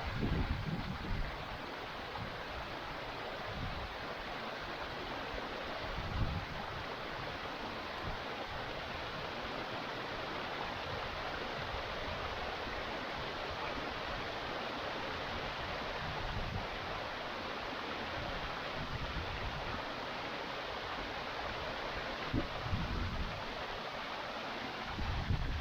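Steady rushing of water pouring over a moorland stream's waterfall, with a few brief low rumbles of wind on the microphone.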